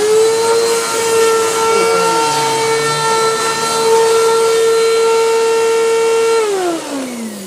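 Vacuum cleaner motor running with a steady high whine. It is switched off about six seconds in, and the pitch falls as the motor winds down.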